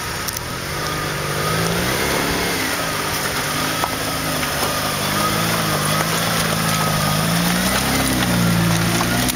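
Frontera 4x4's engine working through deep mud ruts, its revs rising and falling with the throttle and growing louder as it approaches.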